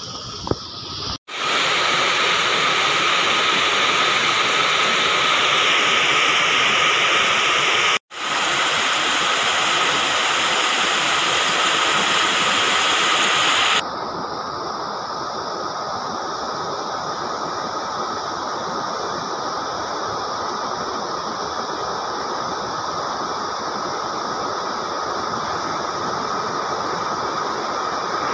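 Heavy rain falling steadily with a dense hiss. It breaks off for an instant twice and sounds duller from about 14 seconds in.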